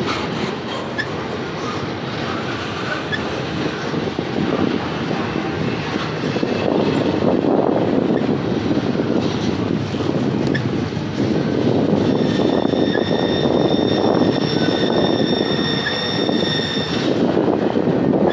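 Loaded double-stack intermodal well cars rolling past, a steady rumble of steel wheels on the rails. In the second half a high-pitched wheel squeal holds for about five seconds, then cuts off suddenly.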